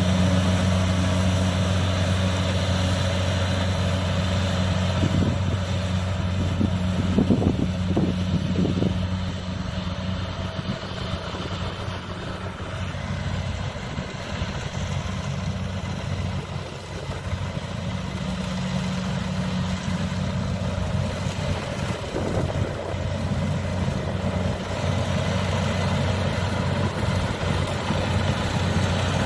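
Diesel engine of rice-harvesting machinery running steadily at a constant pitch, a low hum. There are a few short knocks about six to nine seconds in, and the engine sounds softer for a stretch in the middle.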